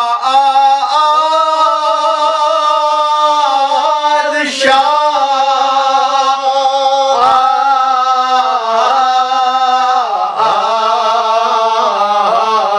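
A man chanting a Muharram elegy solo, with no accompaniment, in a loud, strained voice. He holds long drawn-out notes that waver and bend, with short breaths between phrases about 4.5 s, 7 s and 10 s in. After the last break the pitch drops.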